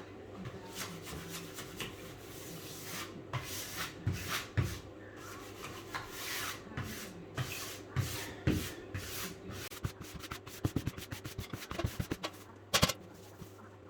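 Sponge rubbing over freshly hung wallpaper in repeated wiping strokes, smoothing it to close up the butt joint between two sheets. The strokes turn quicker and shorter near the end, with one louder stroke.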